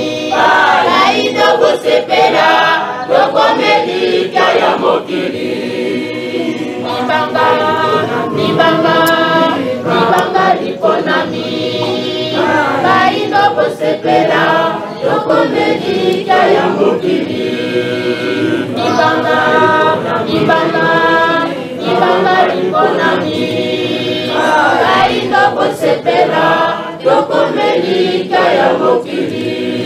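A group of many voices singing together without instruments, a steady, unbroken song.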